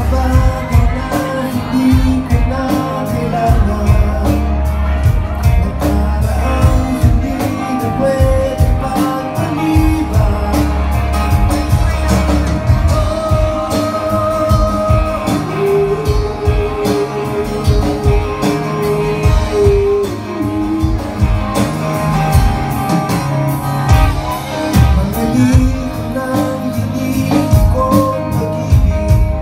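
Live pop-rock band playing a song: a male lead vocal over acoustic guitar, electric guitar, bass guitar and a drum kit keeping a steady beat. The voice holds one long note for a few seconds past the middle.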